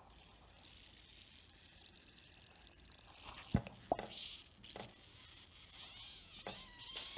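Faint fizzing and water movement as the leaking air unit of a Nike Air Max 2017 sole is pressed under water to find the leak, with two sharp knocks about three and a half and four seconds in.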